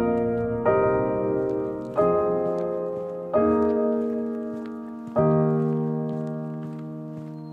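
Piano playing the closing chords of a slow ballad: four chords struck one by one, each left to ring, the last one fading away slowly.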